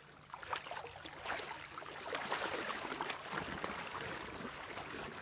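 Water splashing and sloshing around a person's wader-clad legs as he wades through knee-deep river water, starting about half a second in and getting louder.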